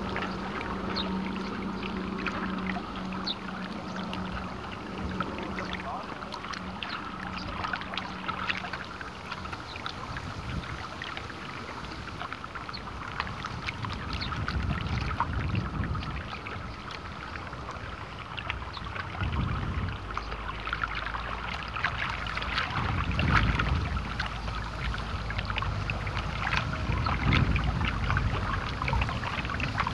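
Small wind-driven waves lapping and splashing at the water's surface right at the camera, a steady run of little splashes with heavier low sloshes coming in from about halfway through. A low steady hum underneath stops about ten seconds in.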